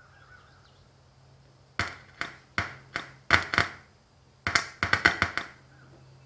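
Old factory car door speaker clicking about a dozen times, in two quick runs, as a 9-volt battery is touched across its terminals to check its polarity: each contact jolts the cone.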